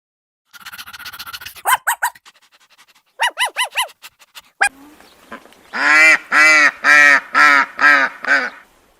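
Waterfowl calling: a few short, higher calls in the first half, then a run of about six loud, evenly spaced calls at about two a second.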